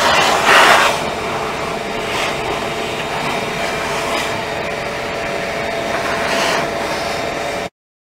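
Shop vac running, its hose drawing loose debris out of a gas grill's steel firebox, with a few brief louder surges as the nozzle is worked along; the sound cuts off suddenly near the end.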